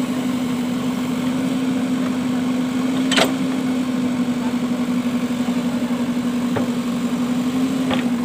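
JCB 3DX backhoe loader's diesel engine running steadily with a constant hum while its bucket digs into earth. There is one sharp clank about three seconds in and two lighter knocks near the end.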